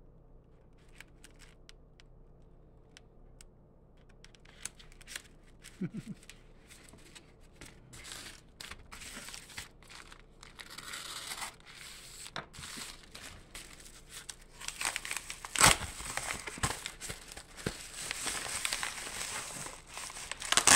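Scissors snipping through the edge of a kraft-paper padded mailer as a few faint clicks. Then the crinkling and rustling of padded mailers being handled while a white bubble mailer is pulled out of the yellow one, growing denser, with sharp louder crackles about two-thirds of the way in and again at the end.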